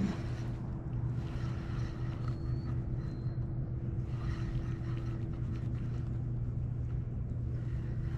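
A steady low mechanical hum made of two constant tones, over a faint wash of wind and water noise, with a short knock right at the start.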